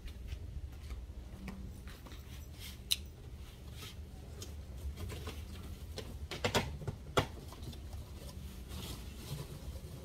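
Large cardboard shipping box being handled and opened: scattered scrapes and taps of cardboard, with a cluster of sharper clicks about six to seven seconds in, over a low steady rumble.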